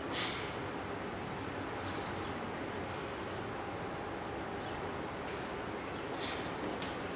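Crickets chirping in a steady, high-pitched trill over a constant background hiss.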